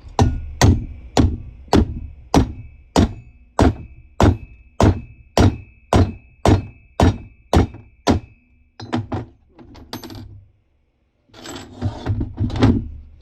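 Hammer blows driving an old valve, ground down as a drift, against a press-fit exhaust valve seat to knock it out of a cylinder head. There are about fifteen steady, evenly spaced blows, a little under two a second, with a metallic ring over them. These are followed by a few quicker, lighter taps and, near the end, a short clatter.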